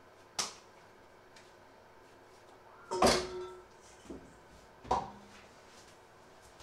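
Ball of dough put into a stainless steel mixing bowl and the bowl knocked against a wooden worktop: a sharp clunk with a short metallic ring about three seconds in, then another ringing knock about two seconds later, with a light click just before the first.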